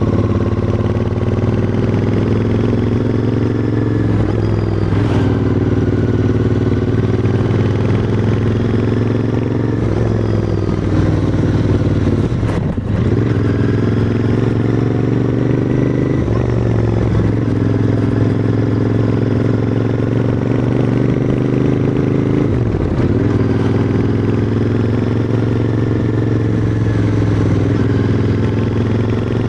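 Royal Enfield Interceptor 650's 648 cc parallel-twin engine running through its exhaust, heard from the rider's seat while climbing under load. The engine note holds steady, briefly drops in pitch and picks up again several times.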